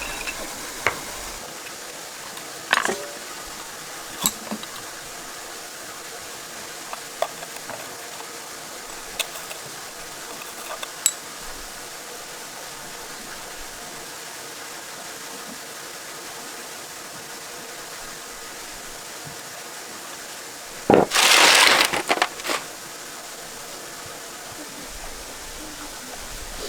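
Scattered sharp metallic clinks of tools and parts being handled during tractor repair work, with a loud rough burst of noise lasting about a second and a half near the end.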